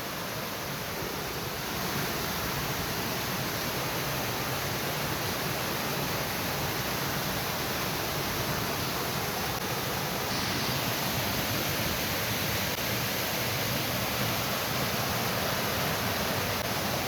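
Waterfall: a steady rush of falling water, a little louder from about two seconds in.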